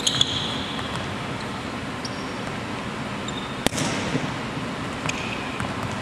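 A volleyball being hit back and forth in a passing drill: two sharp slaps that echo around the gym, one right at the start and one a little after halfway, with a few short sneaker squeaks on the hardwood court over a steady hiss of air.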